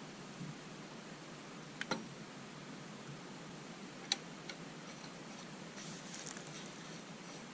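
A few light, sharp metallic clicks and ticks, scattered over several seconds, from the threaded fittings of a water pressure reducing valve being handled and threaded onto the house pipe.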